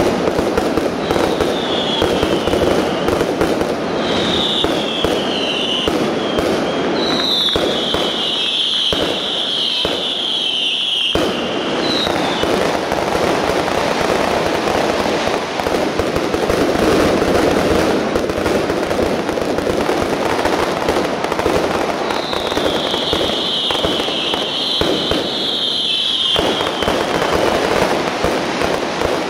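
Professional firework display going off continuously: a dense barrage of bangs and crackling. High, slightly falling whistles last a few seconds each, about a second in, around four and seven seconds in, and again about 22 seconds in.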